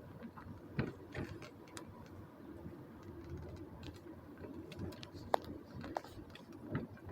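Inside a moving car: low road rumble from the tyres and car body, with scattered, irregular sharp ticks and taps, a couple of them louder about five and six seconds in.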